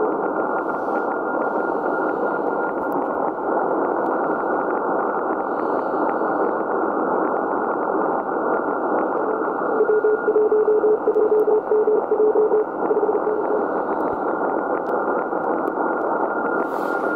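Icom IC-7600 transceiver receiving the 40 m band in CW mode: steady band-noise hiss with faint static crackles. About ten seconds in, a Morse code tone keys on and off for about three seconds, with a fainter, higher steady tone behind it.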